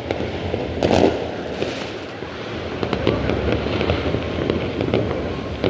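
Fireworks going off: one loud bang about a second in, then a dense run of rapid crackling pops.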